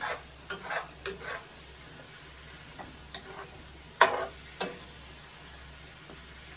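A utensil stirring a pot of stew, giving a series of short knocks and scrapes against the pot, with the loudest knock about four seconds in.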